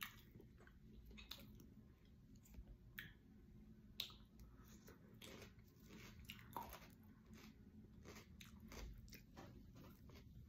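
Faint close chewing of a mouthful of shrimp, with scattered soft crunches and wet mouth clicks.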